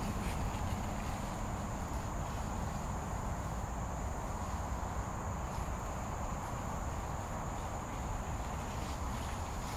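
Forest insects keeping up a steady, high-pitched continuous buzz over a low rumble.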